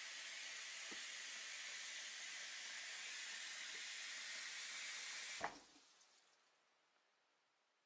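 Thin stream of water running from a bathroom mixer tap into the sink as a steady hiss. It stops about five and a half seconds in with a sharp knock, and a few faint drips follow.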